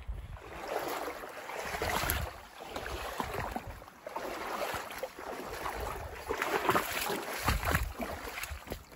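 Water sloshing and splashing around a canoe in uneven surges, with small knocks.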